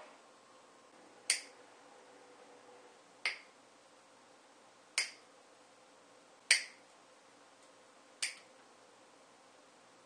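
Hand cutters snipping off the tails of nylon zip ties, five sharp snaps about one and a half to two seconds apart.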